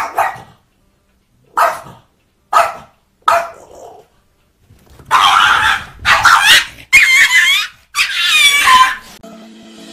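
Small dog barking: four short, sharp barks about a second apart, then four louder, longer bursts of barking and yelping with a wavering pitch.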